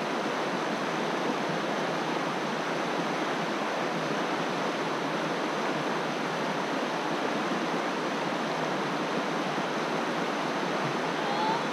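Shallow river rapids rushing over rocks: a steady, unbroken rush of water.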